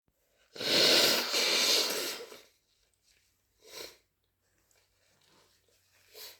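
A long, noisy rush of air through a stuffy, cold-congested nose lasting about two seconds, then two short, faint sniffs.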